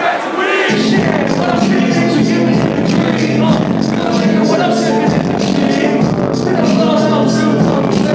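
Live hip-hop concert music played loud over a PA: a beat with heavy bass and regular drum hits, with vocals over it. The bass drops out for under a second at the start, then comes back in.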